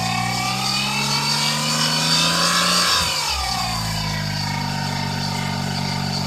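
Daihatsu Terios Kid engine blipped up slowly from idle for about three seconds, then dropping back to idle. A whine rises and falls with engine speed: the abnormal noise that the owner traced, it seems, to the alternator.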